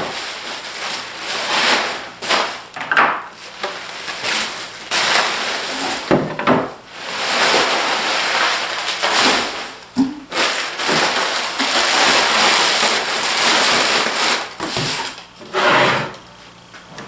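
Unpacking handling noise: continuous rustling and scraping of packing material, with scattered light knocks as things are lifted and set down.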